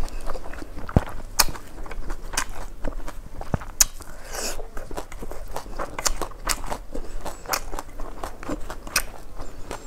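Close-miked eating sounds: a person chewing and smacking on mouthfuls of rice and roselle-leaf stew eaten by hand, with many sharp clicks and small crunches throughout.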